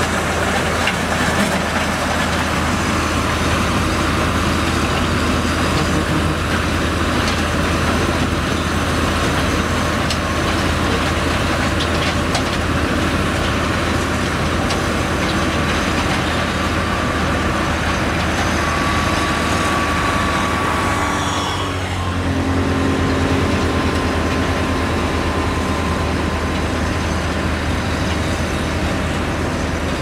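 Diesel engines of Liugong and Komatsu GD625A motor graders running steadily at work, with gravel grinding and crunching under the ripper tines and blade. About two-thirds of the way through the sound dips briefly and shifts in tone.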